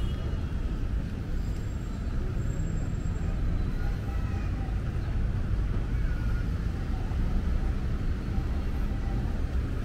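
Steady street ambience: a low, even rumble of road traffic with faint voices in the background.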